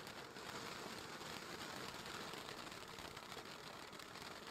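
Ground firework fountain burning with a steady, faint hiss of spraying sparks.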